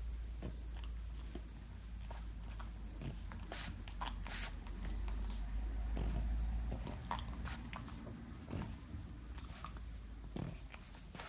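Two pugs licking and nibbling at each other's muzzles: irregular wet smacks and small clicks of mouths and tongues, a few every second.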